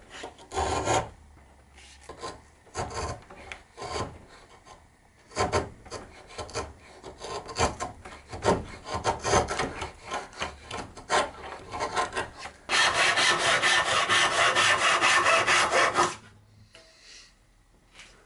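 Chisel paring out the fibres inside a mortise in a cherry chair leg: irregular short scraping and shaving strokes. From about two-thirds of the way in, a louder continuous rasping of about three seconds, then it stops suddenly.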